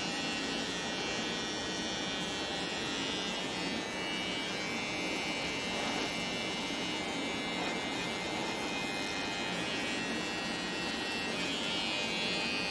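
Corded electric hair trimmer running with a steady buzz, cutting short dry hair around the ear.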